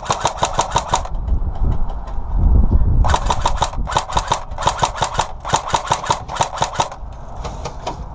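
Airsoft guns firing full-auto in bursts, each a rapid, even string of sharp cracks: one burst at the start, then about six short bursts in quick succession from about three seconds in. A low rumble swells in between, a little after two seconds.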